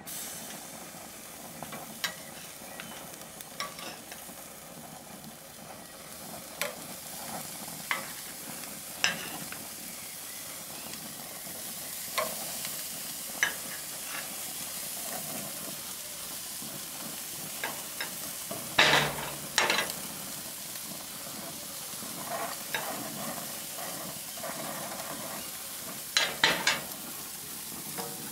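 Bacon and pork sizzling on the hot grates of a Weber gas grill, a steady hiss. Sharp metal clicks and clatters of tongs on the grill grates come now and then, loudest about two-thirds of the way through and again near the end.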